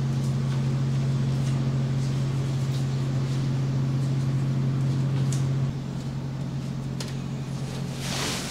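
Steady low machine hum that drops away abruptly about two-thirds of the way in, leaving a quieter hum; a brief rustle near the end.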